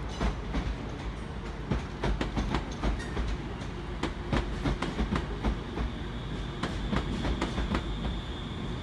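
A TransPennine Express multiple-unit train running past at low speed, its wheels rumbling and clicking over rail joints and pointwork. A faint high-pitched wheel squeal comes in about six seconds in.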